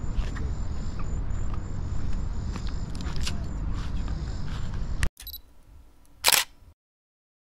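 Road noise inside a moving pickup truck's cabin: a steady low rumble with small clicks, cut off abruptly about five seconds in. A brief sharp noise follows a second later, then the sound drops out entirely.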